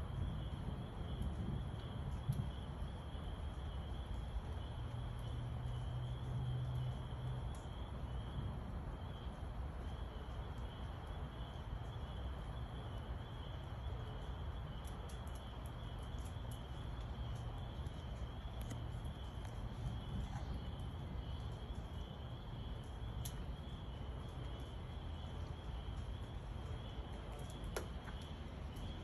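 Distant thunder rumbling low and long, swelling a few seconds in, over a steady high-pitched chirping chorus of night creatures.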